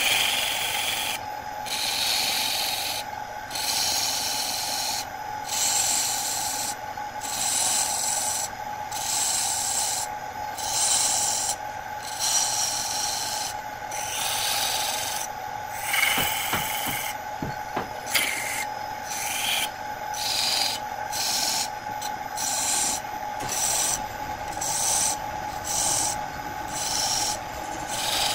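A wood lathe runs with a steady hum while a hand-held turning tool cuts grooves into the spinning wood blank, a hissing scrape with each pass. The passes come about once a second, quicker in the second half, with a couple of knocks a little past the middle.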